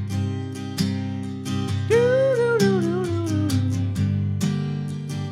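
Acoustic guitar strumming chords in a steady rhythm, with a wordless vocal note entering about two seconds in and sliding down in pitch.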